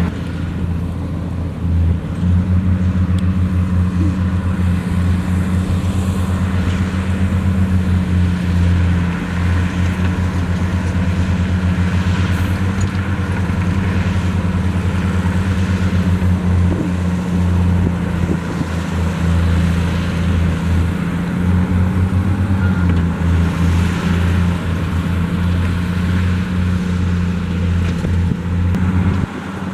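Large diesel engine of heavy earthmoving equipment running steadily close by: a loud, deep, unbroken drone. Its pitch dips slightly a little past two-thirds of the way through.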